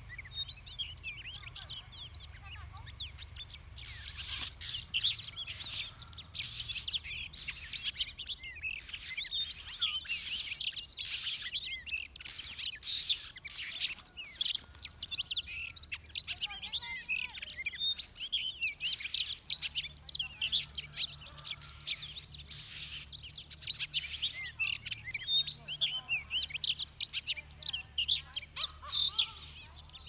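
Oriental magpie-robins singing and calling: a dense, unbroken run of quick high chirps and whistles.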